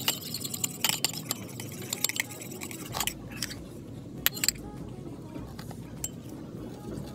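Metal utensil clinking against a ceramic bowl while stirring a thick shampoo-and-salt mixture: scattered sharp clinks, most of them in the first three seconds, with a few more about four seconds in.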